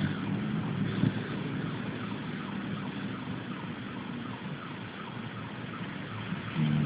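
A sleeping dog snoring, a low buzzing breath sound, with a louder snore near the end.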